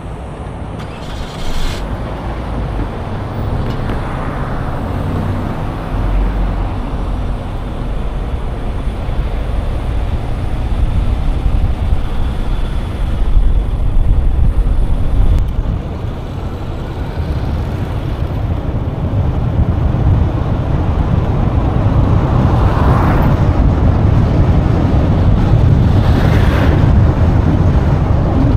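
Road traffic: vehicles passing one after another on a city road over a constant low rumble, with passes swelling at about 4, 14, 23 and 26 seconds in.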